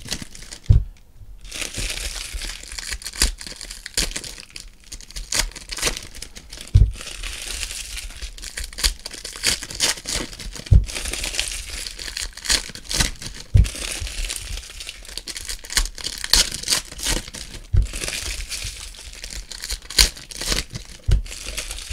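Foil trading-card pack wrappers crinkling and tearing as packs of Panini Prizm basketball cards are ripped open and peeled back by hand: a dense, irregular crackle with a few dull thumps.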